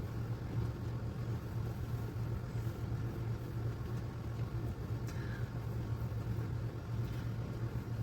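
A steady low hum with a rumbling noise bed, unchanging throughout.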